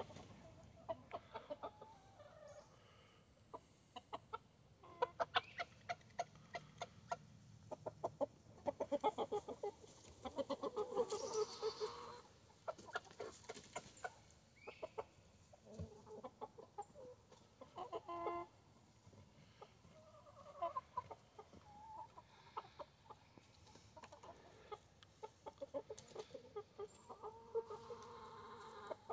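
A backyard flock of hens and roosters clucking: low murmured calls and runs of short, quick clucks that come and go.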